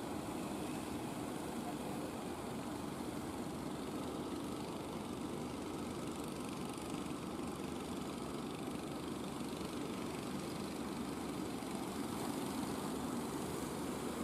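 Steady drone of wooden fishing boats' engines as the boats motor past, with no sudden changes.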